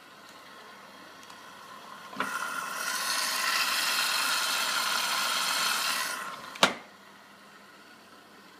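AEG Lavamat washing machine's water inlet valve clicking open about two seconds in, water rushing in with a loud hiss for about four seconds, then shutting off with a sharp click: the machine filling for its 95 °C cottons wash.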